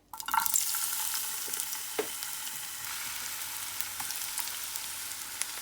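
Onions dropped into hot oil in a frying pan, sizzling sharply the instant they go in and then frying with a steady sizzle, with a few light knocks of a utensil.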